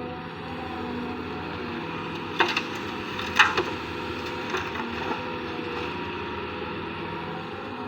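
Excavator engine running steadily, with a handful of sharp clanks in the middle, the loudest about three and a half seconds in.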